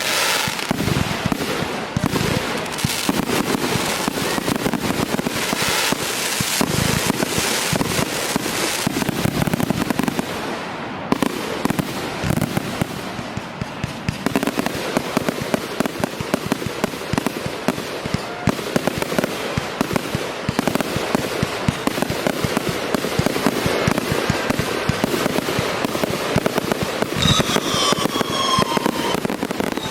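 Fireworks display: a dense, continuous barrage of rapid cracks and bangs, with high falling whistles near the end.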